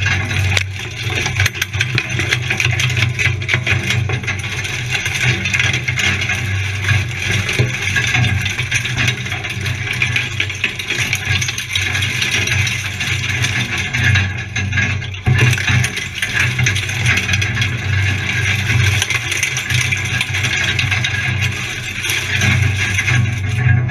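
Four-by-four engine running at low speed with a steady low drone, under constant rattling and knocking from the vehicle as it drives slowly over a rough dirt track.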